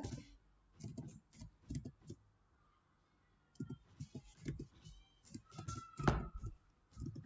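Computer keyboard typing: irregular keystroke clicks in short runs with pauses between words, and one louder knock about six seconds in.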